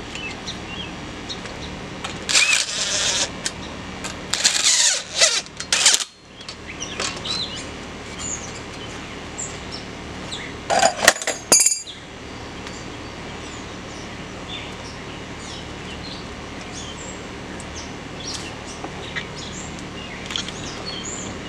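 A few short bursts of metal clinking and scraping as nuts are worked down threaded rods to seat a shaft bearing over a spring-loaded mechanical shaft seal. They come a few seconds in, again around five seconds in, and once more a little past halfway, over a steady outdoor background hum.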